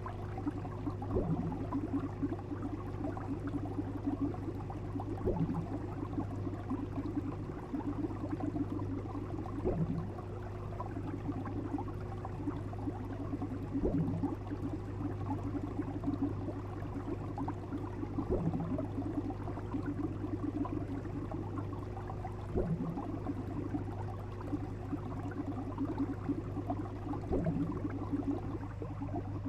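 Water bubbling steadily over a constant low hum, with a short pop about every four seconds at an even spacing.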